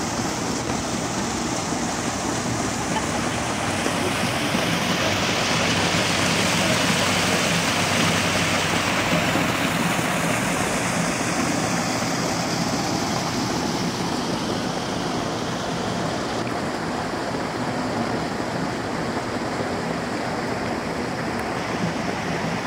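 Running water from garden fountains splashing steadily. It swells a little partway through.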